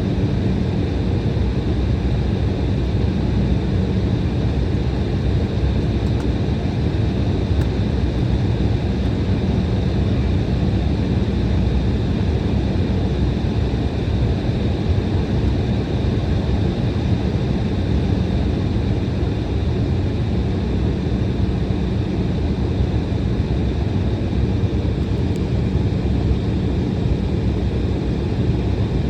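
Steady cabin noise inside an Embraer E175 jet on the ground before takeoff: its turbofan engines running at low power, with an even rush of air and a low hum that does not change.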